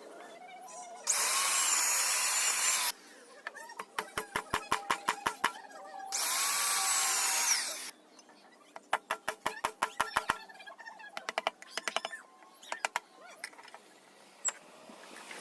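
Power drill running in two bursts of about two seconds each, its motor pitch rising then falling in each, with runs of rapid clicking between and after them.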